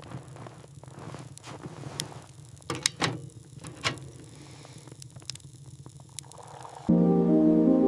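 Scattered sharp clicks and knocks over a low steady hum, the loudest a few seconds in. Soft sustained keyboard music comes in suddenly near the end.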